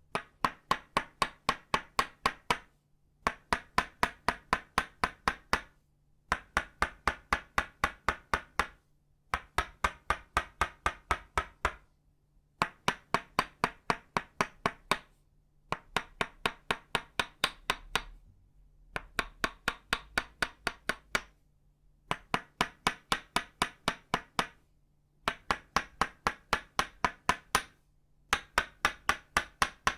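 Tok sen tools of itauba wood: a wooden mallet tapping a wooden peg in quick, even knocks, about four to five a second. The knocks come in runs of about two and a half seconds with a short pause between runs.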